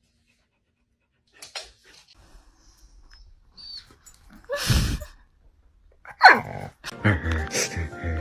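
A dog barks twice, once about halfway through and again about a second and a half later. Music with held notes comes in near the end.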